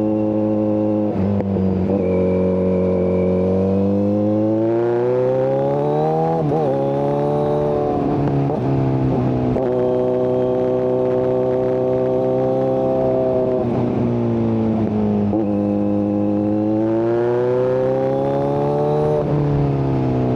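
Kawasaki Z900 inline-four running through an SC-Project exhaust with the catalytic converter removed, heard from the rider's seat. The revs rise and fall several times, with short breaks in the engine note as the gears change, and it holds steady cruising revs in between.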